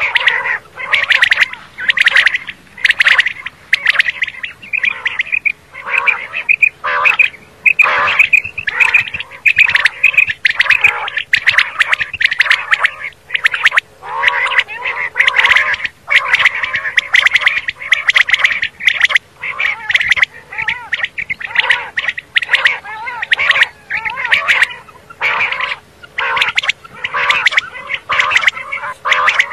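Common quail calling, a dense, rapid run of short, wavering calls with hardly a pause.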